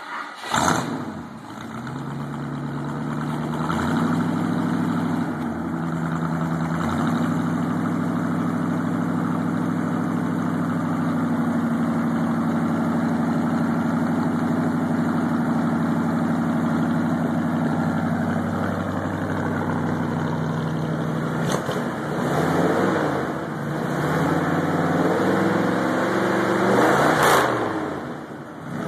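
A 1974 Ford F-100's 360 cubic inch big-block V8 crate engine, breathing through true dual exhausts with glasspack mufflers, fires up and settles into a steady idle. After about twenty seconds, several throttle blips make the pitch rise and fall.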